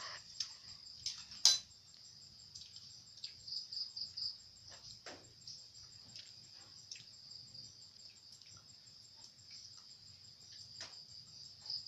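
Crickets trilling steadily in a continuous high-pitched chorus, with a few scattered sharp clicks and knocks; the loudest click comes about a second and a half in.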